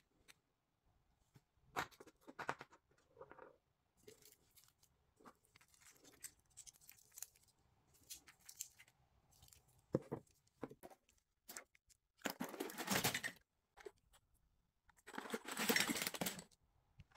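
Small plastic lip balm tubes and toys tapping and clicking as they are handled. Then, twice, the second time near the end, a loud clatter of many small plastic items jostled together in a plastic bin.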